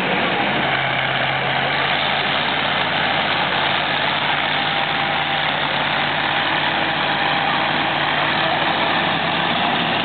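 Engine-driven machinery running steadily: a continuous, even noise with a low hum underneath that does not change.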